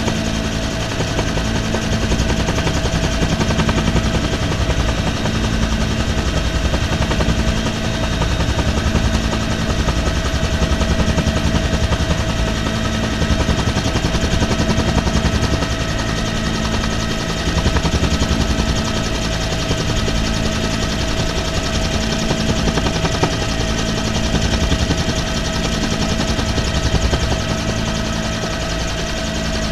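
Military helicopter in flight, heard from its open cabin door: the rapid, steady chop of the rotor blades over a constant high whine, with a low hum that pulses about once a second.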